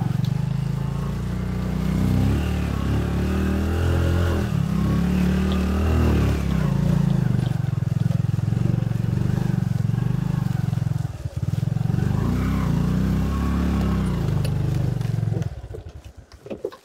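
Small motorcycle engine revving hard and unevenly as it climbs a slippery muddy slope, its pitch rising and falling. It dips briefly about eleven seconds in, then fades out near the end.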